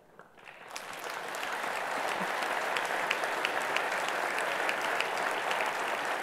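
Large audience applauding, swelling over the first second, then holding steady as a dense patter of many hands clapping.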